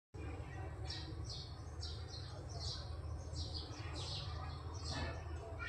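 Bird chirping repeatedly: about eight short, high, falling chirps over a steady low hum.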